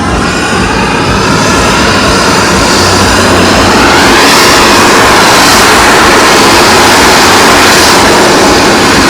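Loud aircraft engine noise, a dense roar with faint shifting whine tones, swelling through the middle and easing near the end.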